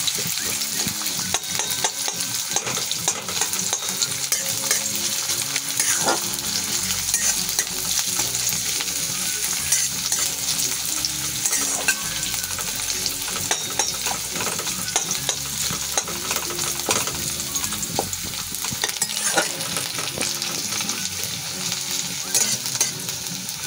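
Chopped onion, garlic and ginger sizzling in hot vegetable oil in a metal kadai, stirred with a spatula that scrapes and taps against the pan again and again.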